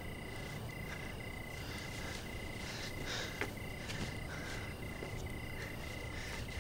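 Night ambience of crickets trilling in one steady high note, broken briefly about twice a second, with frogs calling faintly.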